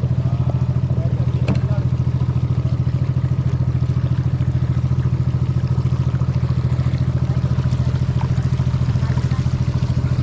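Small boat's engine running steadily under way, a fast, even putter that does not change.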